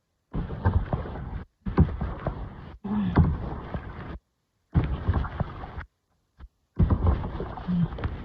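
Wind and water noise on the microphone during ocean kayaking, coming in rough bursts, with the sound cutting out completely several times between them.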